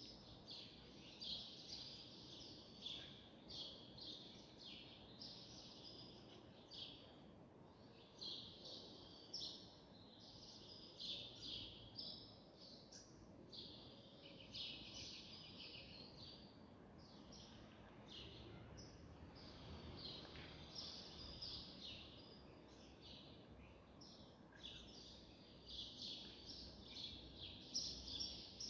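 Faint bird chirping, short twittering phrases repeating throughout over a low background hiss.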